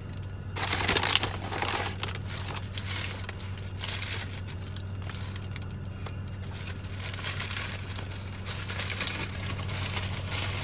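Paper burrito wrapper and paper takeout bag crinkling as they are handled, in irregular bursts, loudest about a second in.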